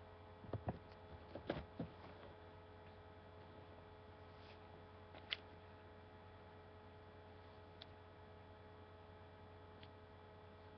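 Faint steady electrical hum with a few short clicks: several in the first two seconds, one sharper click a little past five seconds, and a couple of fainter ones later.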